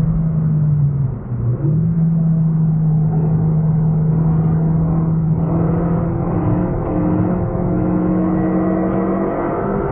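Renault Mégane RS265's turbocharged 2.0-litre four-cylinder heard from inside the cabin under track driving. About a second in the engine note drops briefly as the car slows for a corner, then jumps back up with a downshift. It then pulls steadily, rising slowly in pitch as the car accelerates out.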